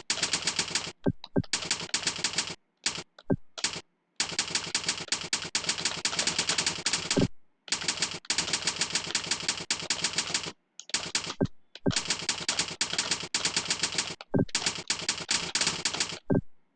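Fast typing on a computer keyboard: rapid runs of keystrokes broken by short pauses.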